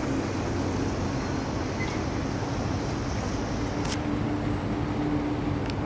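Steady outdoor city hum of distant road traffic, with a steady low drone joining about four seconds in and two brief light clicks near the end.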